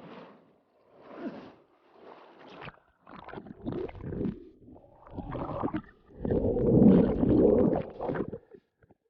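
Wind buffeting the microphone in uneven gusts over surf noise, growing louder in the second half, then cutting off suddenly near the end.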